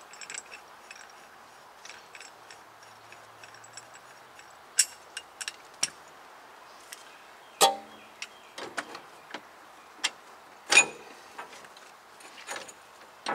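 Metal clinks and knocks of ball joint press parts (receiver cup, sleeve and cap) being fitted together and set against a truck's upper control arm. There is a louder clank with a brief ring about halfway through and another louder knock near the end.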